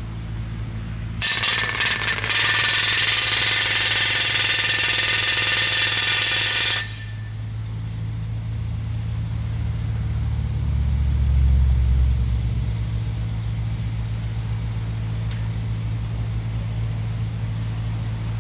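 A post-driving machine pounding fence poles into the ground: a loud, dense hammering starts about a second in, lasts about five seconds and stops abruptly, over the machine's engine running steadily. The engine swells louder midway, then settles.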